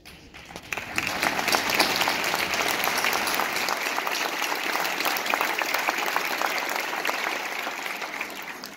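Large audience applauding: many hands clapping, swelling within the first second, holding steady, then tapering off near the end.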